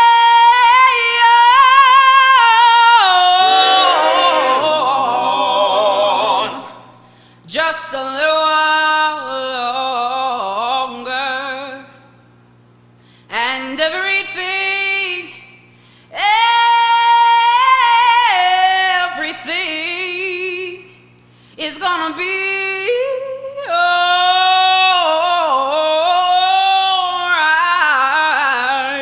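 A female gospel vocalist singing wordless runs and long held notes with wide vibrato, in several phrases separated by short breaths, over a faint sustained backing.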